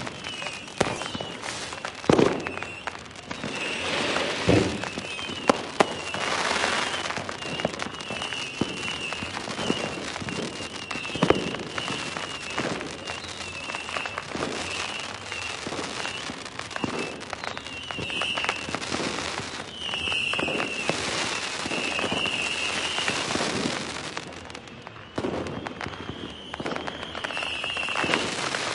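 Fireworks going off continuously: a dense crackle of bursts and pops, with several sharp louder bangs standing out, the loudest about two seconds in and again around eleven seconds in.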